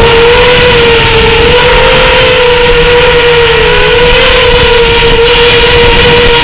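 FPV racing drone's electric motors and propellers whining at a nearly steady pitch, wavering slightly a couple of seconds in, over a loud hiss.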